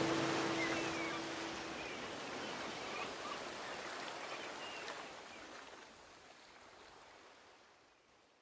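The end of a song: a held acoustic guitar chord dies away in the first couple of seconds, leaving a hissing ambience with a few short chirps that fades out to silence near the end.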